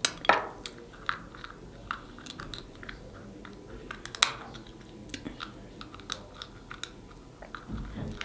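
Close-miked eating of snow crab: chewing with scattered sharp clicks and cracks of crab shell, the loudest about a third of a second in and another about four seconds in.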